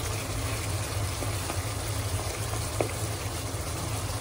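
Mutton-and-tomato gravy bubbling and sizzling in a pot as it is cooked down on a gas burner on high flame: a steady hiss with a low rumble underneath. A few light taps of a wooden spoon against the pot come as it is stirred and mashed.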